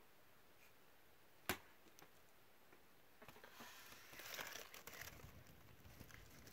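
Near silence broken by a single sharp click about a second and a half in, then soft, irregular rustling and crackling from about halfway through.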